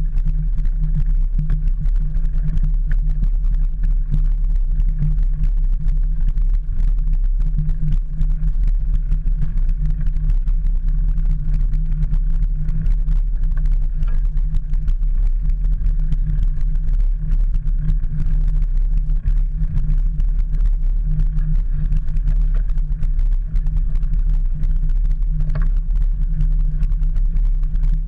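Steady low rumble of a mountain bike rolling along a rough woodland path, picked up through a camera clamped to the handlebars, with many small knocks from bumps.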